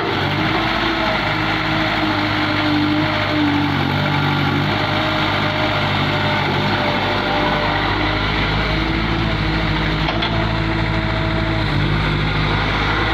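Caterpillar 365C hydraulic excavator's diesel engine running steadily, its tones rising and falling a little as the machine works.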